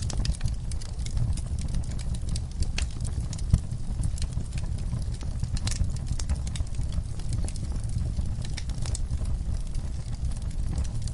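Campfire crackling: burning wood gives irregular sharp pops and snaps over a steady low rumble, with one louder pop about three and a half seconds in.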